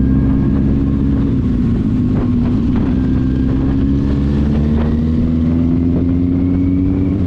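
Motor vehicle engine running at a steady pitch while driving along, dipping briefly about two and a half seconds in and again near the end.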